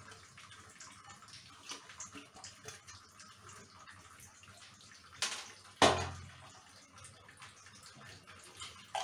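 Faint rustling and light patter of chopped vegetables being tipped by hand from a steel tray onto a plate of shredded chicken, then two knocks a little past five seconds in, the second a loud clank as the metal tray is set down.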